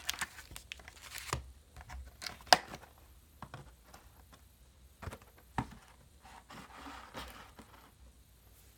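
Trading-card packs and their cardboard retail box being handled: scattered light taps and clicks, the sharpest about two and a half seconds in, with a short stretch of soft crinkling about seven seconds in.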